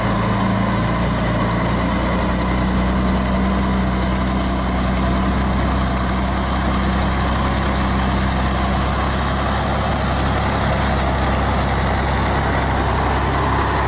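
Diesel engine of a loaded Scania logging truck running steadily at low speed, a constant low drone.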